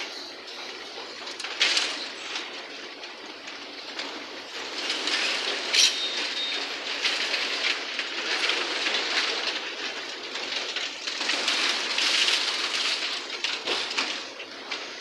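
Excavator loading demolition rubble into a steel tipper truck: continuous clattering and scraping of debris, with a sharp bang and a brief high squeal about six seconds in.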